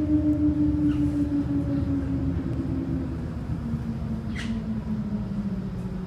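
City bus running with a low rumble and a steady tone that slowly falls in pitch, with a brief high squeak about four seconds in.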